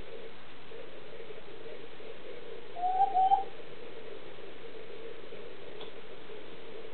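Domestic hen giving two short, slightly rising calls in quick succession about three seconds in, over a steady hum.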